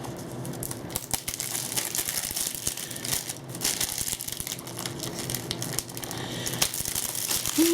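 Plastic wrapping on a DVD case crinkling and tearing as it is pulled off by hand, a continuous run of small crackles.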